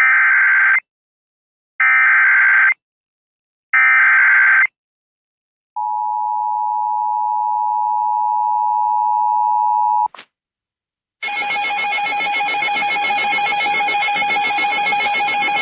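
Emergency Alert System SAME header: three short bursts of raspy digital data tones about two seconds apart. Then comes the steady two-tone EAS attention signal for about four seconds, which cuts off with a click. About a second later a harsher, noisier alert tone starts and holds.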